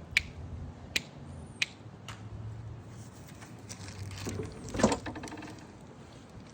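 A few sharp metallic clicks, then a louder clatter about five seconds in, from hand work on the mower's engine: locking pliers coming off the fuel hose and the spark plug wire being reconnected. The engine is not running.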